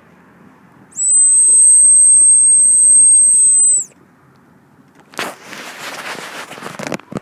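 Dog whistle blown once in a single steady, very high-pitched tone lasting nearly three seconds, starting about a second in. A rush of rustling noise follows about a second after it stops.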